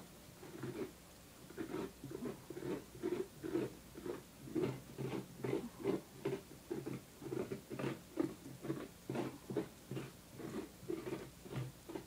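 A hand scraping and pulling stringy pulp and seeds out of the inside of a raw pumpkin, in quick repeated strokes about two or three a second.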